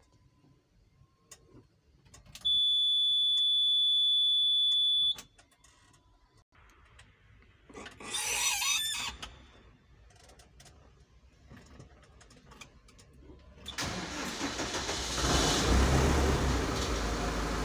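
A high, steady warning buzzer sounds for about three seconds as the ignition key is turned on the Same Laser 100 tractor. Near the end the starter cranks and the 5.2 L five-cylinder SDF 1000 diesel engine fires and keeps running, getting louder as it catches.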